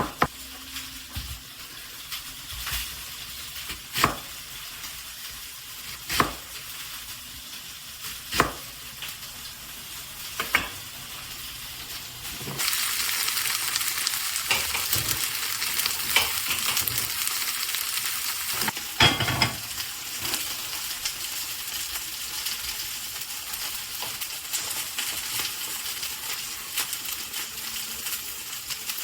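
Food frying in oil in a pan, a steady sizzle, with sharp knocks of a utensil against the pan roughly every two seconds in the first half. About twelve seconds in the sizzle turns much louder, then eases back down about six seconds later.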